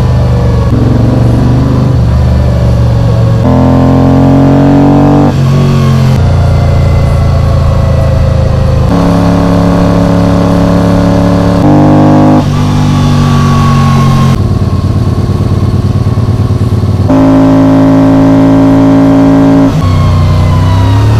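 Moto Guzzi V35's V-twin engine running under way, its pitch holding steady for a few seconds at a time and then changing suddenly, with a few revs rising and falling.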